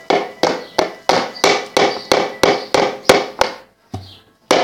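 A bottle being knocked over and over, about three sharp taps a second with a short ring after each, to shake the small crickets out into the tank; the tapping stops for a moment near the end and then starts again.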